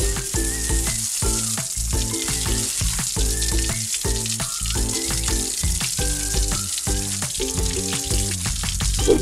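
Water running from a toy sink's faucet in a steady hiss, over background music.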